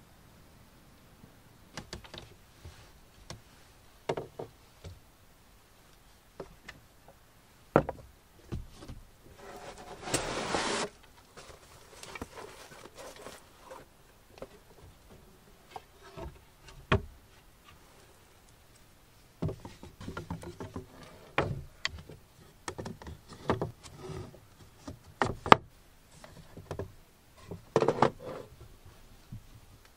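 Wooden crate and wooden boards being handled: scattered taps, clicks and sharp knocks as things are moved and set down. There is a scraping rustle lasting about a second around ten seconds in, and the knocks come thicker near the end.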